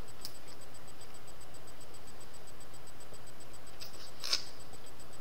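A few short clicks and smacks of a hard-candy lollipop being sucked, the candy knocking against teeth and lips. The sharpest click comes about four seconds in, over a steady hiss.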